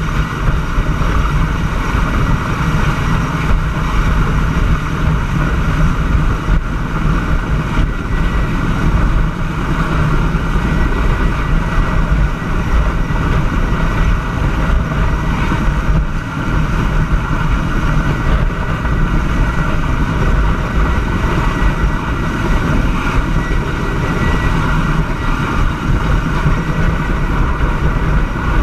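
Helicopter hovering close overhead while lifting a steel pole section: steady engine and rotor noise with rushing wind.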